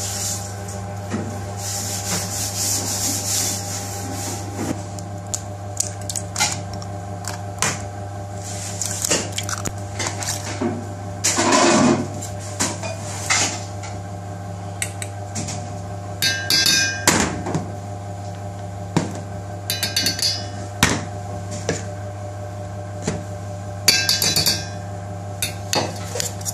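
Kitchen prep sounds over a steady mechanical hum: a knife cutting on a plastic cutting board at first, then scattered clinks and knocks. In the second half, a metal spoon scrapes and knocks in a stainless steel bowl, with rasping bursts of stirring.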